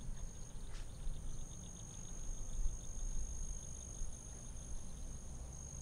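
Crickets trilling steadily in high, continuous tones, with a faint rapid pulsing among them. Low rumbling handling noise runs underneath.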